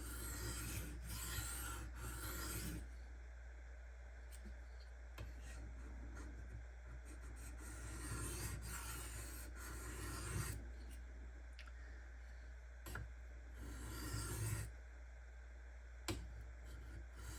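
Steel knife blade drawn across a Shapton Kuromaku 1500-grit whetstone, a rasping scrape in three spells: at the start, through the middle, and briefly near the end, with light clicks between. This is the edge bevel being rubbed on the stone to remove Sharpie ink and find the grind angle.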